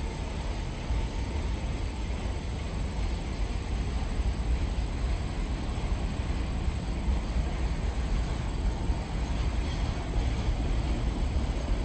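Freight train cars rolling past: a steady rumble of wheels on rails with no distinct knocks or horn.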